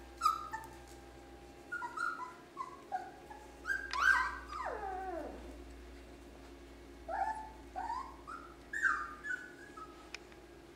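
German shorthaired pointer puppies whimpering and yipping in short, high cries that come in little bunches, with one longer whine about four seconds in that falls steeply in pitch.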